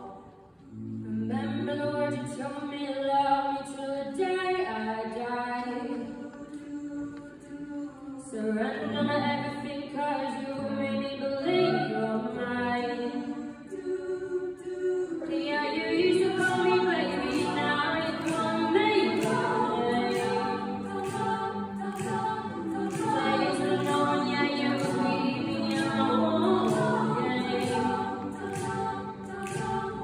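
Mixed-voice high school a cappella ensemble singing in close harmony. After a brief hush at the start the voices come in, and about halfway through the singing grows louder and a crisp, steady beat joins.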